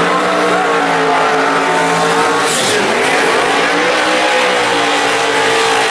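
Drag-race Ford Mustang's engine held at high revs through a burnout, rear tire spinning in smoke with some tire squeal. The engine note dips sharply about halfway through, then picks up again and climbs slowly.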